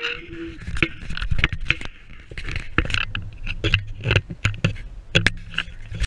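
Handling noise from a GoPro camera being moved and repositioned on its mount: scraping and rubbing with an irregular run of knocks and clicks. A low engine hum sits beneath it.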